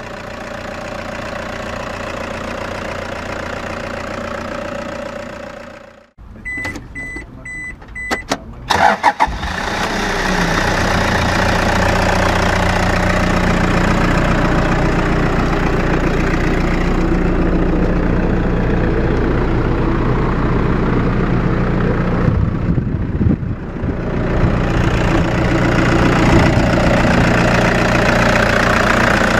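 Toyota Hiace's 2KD-FTV 2.5-litre four-cylinder diesel idling, then stopping. A few short electronic dash beeps follow, then a brief crank. The diesel catches about ten seconds in and settles into a steady idle with typical diesel clatter.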